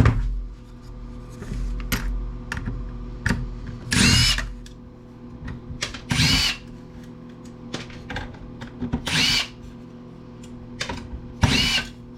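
Power screwdriver whirring in four short bursts, each spinning up and down in pitch, unscrewing fasteners from a power planer's housing. Small clicks of parts and screws being handled in between, over a steady low hum.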